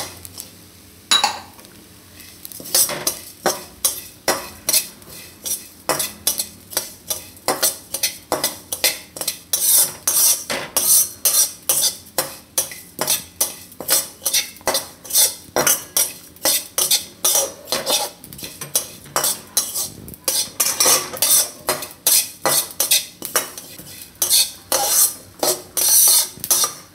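Metal spatula stirring and scraping coriander, cumin and white sesame seeds as they roast in a steel kadai. The seeds rattle against the pan in quick, even strokes, about two to three a second. The first couple of seconds are quieter, with a single knock about a second in.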